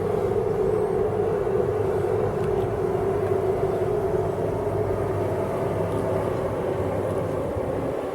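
Snowstorm street ambience: wind rumbling on the microphone under a steady droning hum that sinks slightly in pitch.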